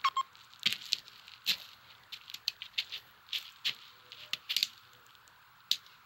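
Irregular sharp clicks and crackles, a few a second, uneven in strength.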